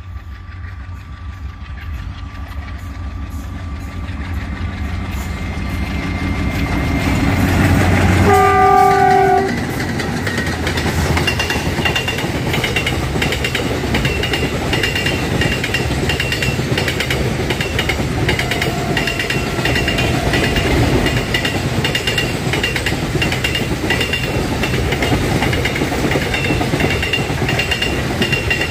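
Pair of Alco diesel locomotives hauling a container train, their engines growing steadily louder as they approach. A horn sounds for about a second about eight seconds in, as they come level. Then a long rake of container flat wagons rolls past with a steady rumble and clatter of wheels on the rails and a high squeal that comes and goes.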